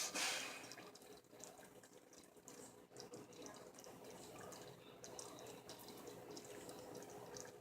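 Teriyaki sauce simmering in a small saucepan: a faint, steady bubbling with small pops and ticks, after a brief hiss at the start.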